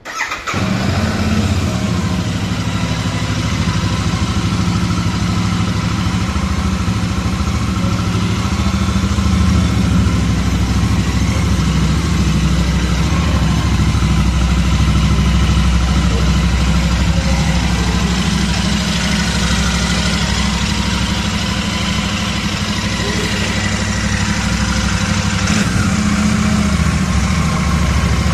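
Royal Enfield Super Meteor 650's 648 cc parallel-twin engine is started on the electric starter, catching within the first half-second. It then settles into a steady, loud idle, heard close to the exhaust.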